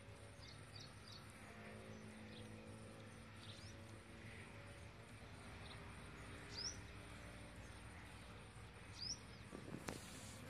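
Faint outdoor ambience with short, high, rising bird chirps scattered through it. Near the end there is a brief knock of handling noise as the phone is moved.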